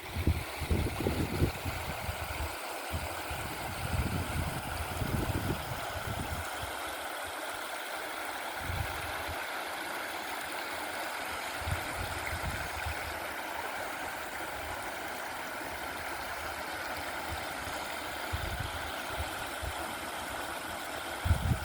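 Steady rushing of flowing stream water, with gusts of wind buffeting the microphone in low rumbles, strongest in the first few seconds and again near the end.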